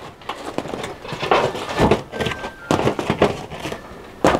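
Crusty baked bread rolls being pulled off a metal baking tray and dropped into a wicker basket: a string of irregular light knocks, scrapes and rustles, with one sharper knock near the end.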